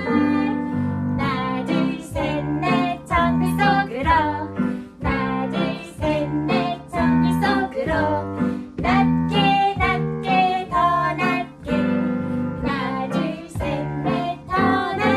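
Women singing a lively Korean children's jungle song to acoustic guitar accompaniment, with a counted 'one, two, three, four' line.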